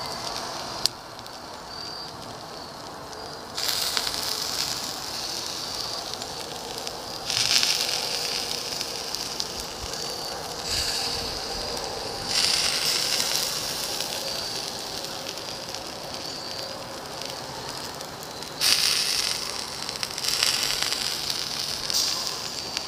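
Beef burger patties sizzling and crackling on a charcoal grill grate, the hiss swelling louder several times as fat drips onto the hot coals.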